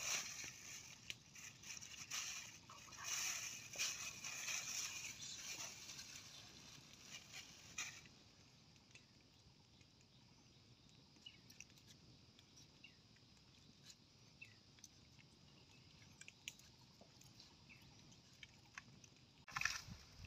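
Soft handling noise, rustling and squishing with small clicks, as raw chicken pieces are pushed onto a wooden skewer; it goes faint after several seconds, leaving scattered small ticks. Near the end a louder crackling begins from a wood fire.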